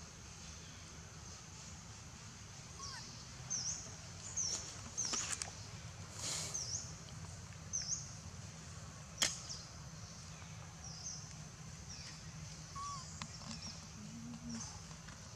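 Outdoor ambience: short high chirps that dip and rise, recurring every second or so from about three seconds in, over a faint steady high whine and a low hum, with a brief rustle and a few sharp clicks around the middle.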